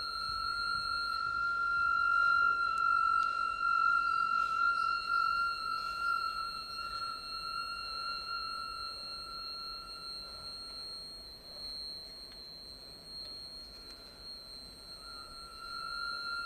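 Performance soundtrack of sustained high ringing tones, several pitches held steady at once. The lowest and loudest tone fades out a little past the middle and comes back near the end.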